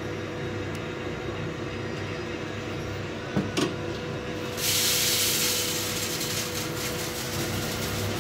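A steady low background hum with a constant tone. Two soft knocks come just past three seconds, then a hiss starts suddenly about four and a half seconds in and fades into soft scraping strokes as a silicone spatula spreads white sauce over raw pizza dough.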